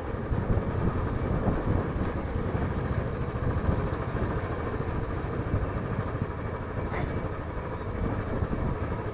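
Motorcycle being ridden along a road, heard from the rider's seat: a steady low rumble of engine and road noise.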